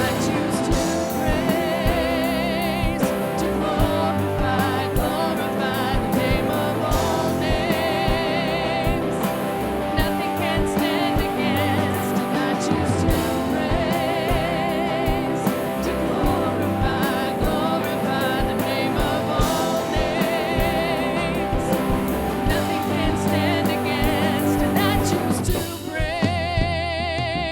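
Live worship band music with singing: a contemporary Christian song with vocals, sustained instruments and a steady drum beat.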